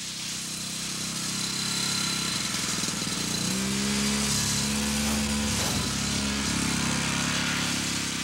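Snowmobile engine running under way, its pitch stepping up about halfway through and dropping back a little near the end.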